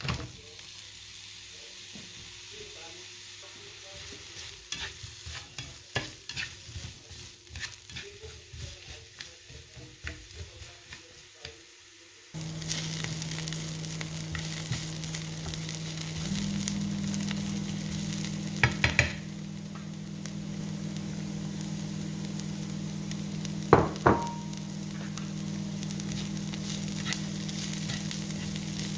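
Sliced onions frying in oil in a nonstick frying pan, stirred and scraped with a spatula. At first there are many small clicks of the onions and spatula. About halfway through the sizzling gets louder and steadier over a low hum. A couple of sharp knocks against the pan come about two-thirds and four-fifths of the way in.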